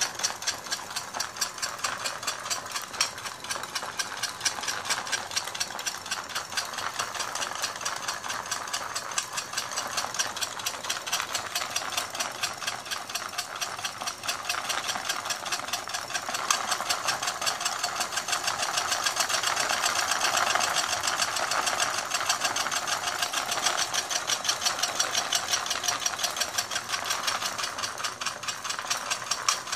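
Handmade model dual-power electric engine running on 12 V DC, its coil motors turning the flywheel, reduction gear and propeller shaft. A rapid, even clicking over a whir that swells somewhat past the middle and eases near the end.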